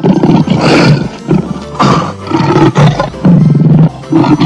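Lion roaring: a series of four or five loud, rough roars about a second apart.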